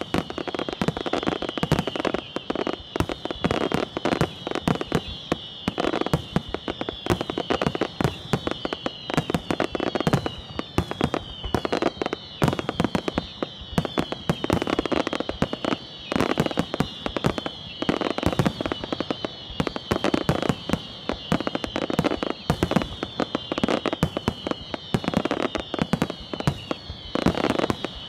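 Aerial fireworks display, a Valencian castillo: a rapid, unbroken string of shell bursts, bangs and crackles, with high whistles falling slightly in pitch again and again.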